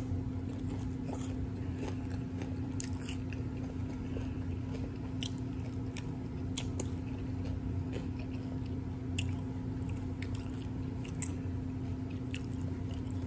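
Close-up chewing of a last mouthful of hard-shell taco, with scattered crisp crunches and wet mouth clicks.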